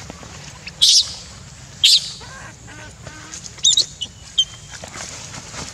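Baby macaque screaming: four short, shrill cries, the first two the loudest, the later two wavering in pitch.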